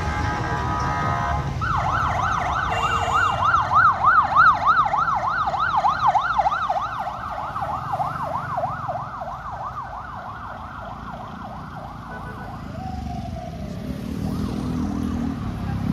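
Emergency vehicle siren in street traffic: a steady wail at first, then a fast yelp rising and falling about three times a second for some ten seconds, easing into slower falling wails near the end, over a low rumble of traffic.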